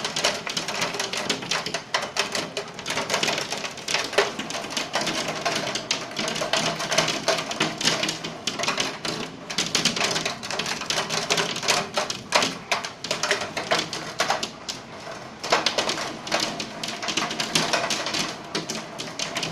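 Hail coming down in a summer thunderstorm: a dense, uneven clatter of countless small hailstone impacts that swells and eases in waves.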